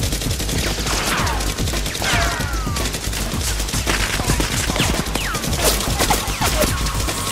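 Automatic gunfire sound effect: a continuous burst of rapid shots, with a few falling whistles about a second in, around two seconds in and near five seconds.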